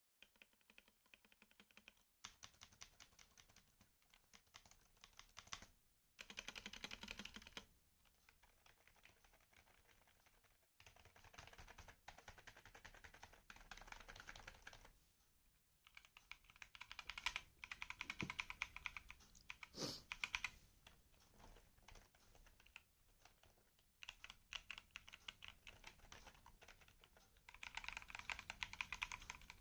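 Fast typing on a computer keyboard: bursts of rapid key clicks with short pauses between them, and a couple of single harder key strikes near the middle.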